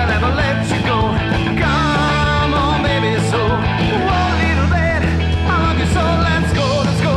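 Rockabilly trio playing rock and roll live: a wavering lead line over steady bass notes, with no break.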